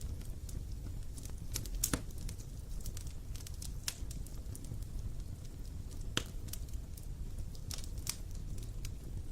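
Wood campfire crackling, with irregular sharp pops and snaps over a steady low rumble. The strongest pop comes about two seconds in.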